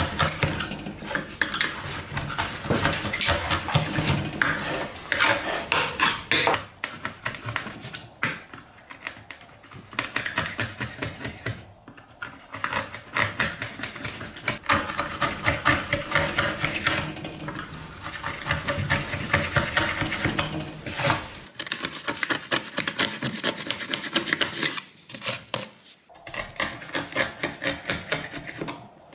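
A narrow hand chisel paring and scraping out a groove in a wooden board, with many quick short scraping strokes in runs and a few brief pauses.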